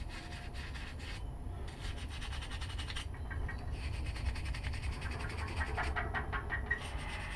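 Rapid, repeated scraping strokes as an old, brittle carburetor bowl gasket is scraped off its seat, the gasket crumbling to dust.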